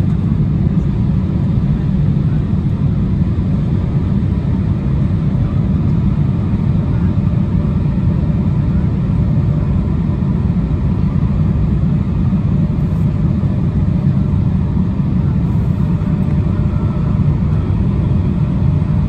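Steady cabin noise inside an Embraer 175 airliner in flight: the drone of its General Electric CF34-8E turbofan engines and the rush of air past the fuselage, heavy in the low rumble, with a faint steady whine above it.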